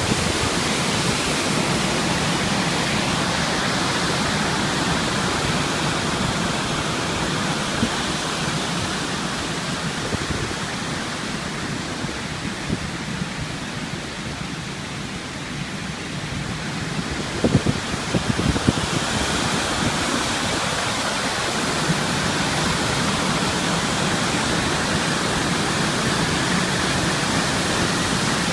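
River water pouring over a waterfall: a steady rushing noise that softens a little around the middle, with a few brief low thumps a little past halfway.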